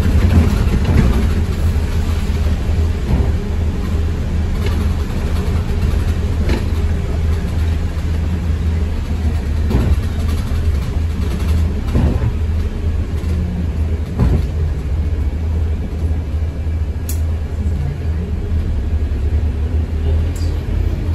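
ADL Enviro200 MMC single-deck bus on the move, its engine giving a steady low drone with occasional short knocks and rattles. Over the last few seconds the engine note rises as the bus accelerates.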